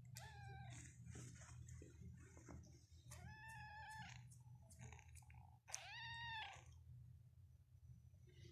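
Persian kitten meowing three times in high, thin mews: a short one at the start, then two longer, arching ones about three and six seconds in.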